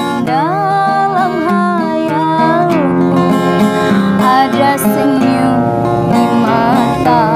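A woman singing with wavering, ornamented held notes, accompanied by a strummed acoustic guitar.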